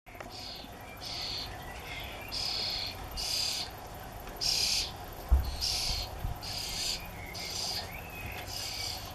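Nestling common starlings begging to be fed: a run of harsh, raspy hissing calls, about one a second, each about half a second long. A brief low thump sounds about halfway through.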